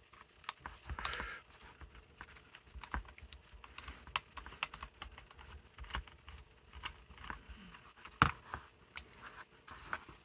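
Irregular small clicks and ticks of a screwdriver working the screw on the back of a car door latch unit and of the latch's metal and plastic parts being handled, with one sharper knock about eight seconds in.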